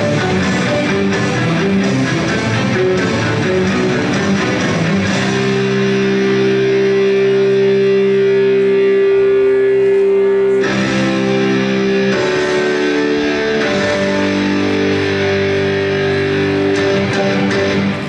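Guitar-led music accompanying a gymnastics floor routine, with a stretch of long held chords in the middle; it stops right at the end.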